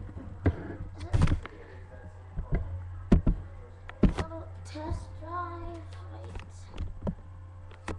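Irregular knocks and bumps from a webcam being handled and repositioned, with a child's voice singing wordlessly in between, over a steady low electrical hum.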